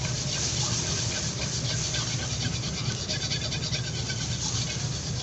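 Eggs frying with a steady hiss in a hot wok, a steel ladle scraping and pushing them around the pan as they are scrambled, over a steady low rumble.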